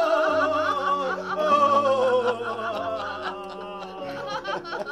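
Several people laughing heartily over music with held low notes. The laughter wavers, slides down in pitch and fades toward the end.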